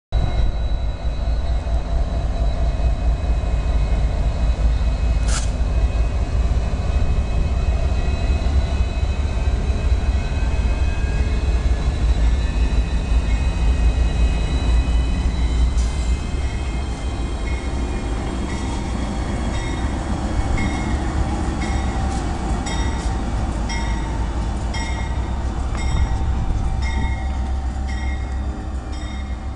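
Three Union Pacific diesel locomotives passing close by: a heavy, steady rumble of engines and wheels on rail, easing a little as they draw away in the second half. A sharp clank stands out about five seconds in, and from about two-thirds of the way through a ringing sound repeats about once a second.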